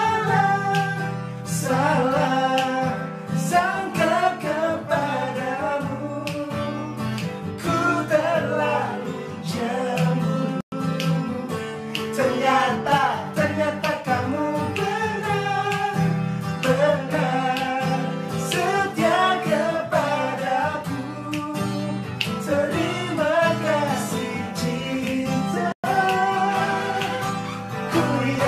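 Two men singing an Indonesian pop love song together, accompanied by a strummed acoustic guitar. The audio cuts out for an instant twice.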